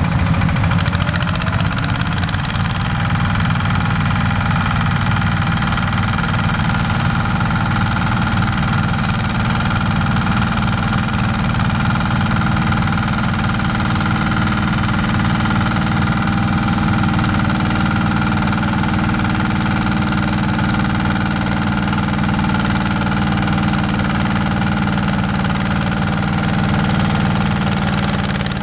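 Single-cylinder diesel engine of a Yanmar walking tractor running steadily under load while its rotary tiller churns dry soil. There is a brief shift in engine pitch about a second in.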